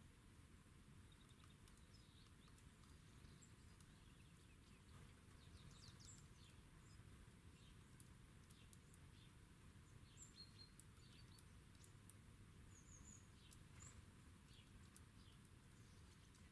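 Faint small songbirds chirping and calling in short scattered notes over low background noise, with a few sharp faint clicks in the middle.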